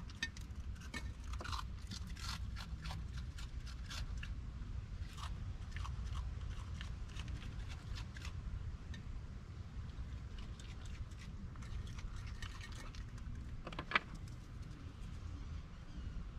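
A raccoon crunching and chewing dry food at a wooden feeding table, with many quick clicks and scrapes as it paws at a glass jar, and one sharper knock near the end.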